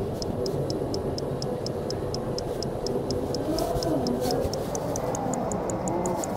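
Tesla Model 3 turn-signal indicator ticking at a steady rate of about four ticks a second, signalling a left turn.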